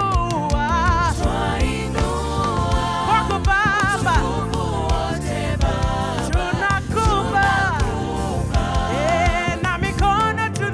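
Gospel worship song: singers with vibrato over a band with bass and drums.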